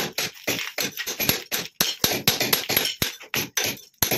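Hammer striking a steel chisel into a brick wall in a steady run of blows, about three to four a second, chipping out a channel for concealed electrical conduit.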